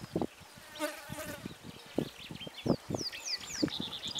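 A fly buzzing past briefly about a second in, with short falling bird chirps near the end and scattered soft low thumps.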